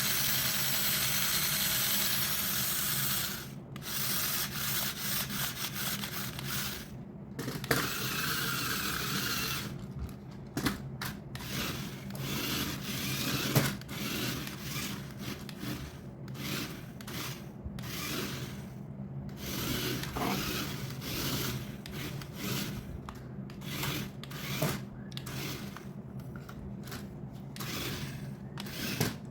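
Hands rubbing and scraping against toy packaging and plastic parts, with irregular scrapes and scattered small clicks over a faint steady low hum.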